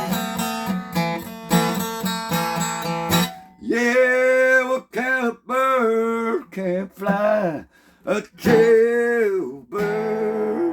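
Acoustic guitar strummed in a steady rhythm. From about four seconds in, a voice sings several long, wavering notes over it without clear words, closing out the song.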